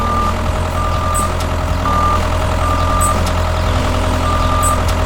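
Truck engine running steadily while a reversing alarm beeps about five times at uneven intervals.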